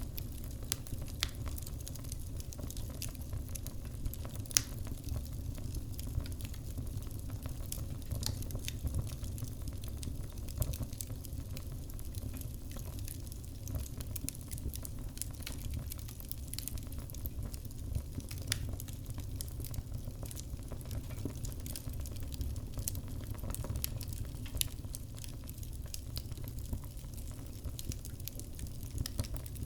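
Wood fire burning in a wood-burning kitchen stove with its door open: light crackling, with irregular small pops and snaps over a steady low rumble of the flames, one louder pop about four and a half seconds in.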